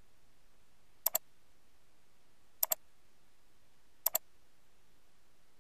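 Computer mouse button clicking: three quick double clicks, about a second and a half apart, over faint room tone.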